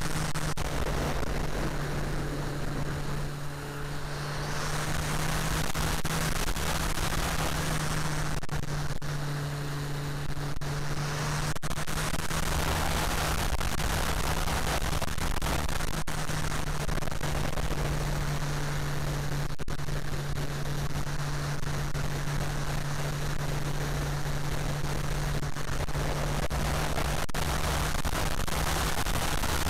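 Wind rushing hard over the microphone of a wing-mounted camera on a flying RC airplane, over the steady hum of the electric motor and propeller. The rushing eases briefly twice, about three seconds in and again around ten seconds.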